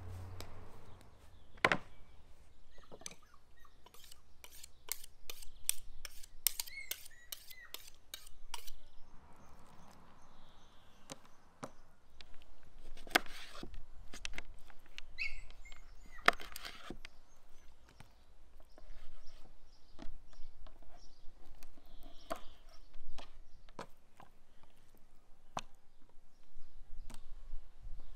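Kitchen knife cutting raw quail on a wooden cutting board: a quick run of chops about four seconds in, then separate knocks and cuts on the board. Birds chirp faintly now and then.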